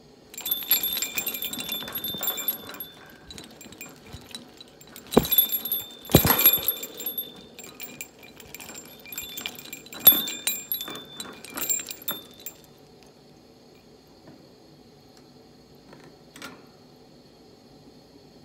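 Small metal bell and chains of a hanging bird-cage toy jingling in repeated bursts, with a few sharper knocks from its wooden and plastic pieces. The jingling stops about twelve seconds in.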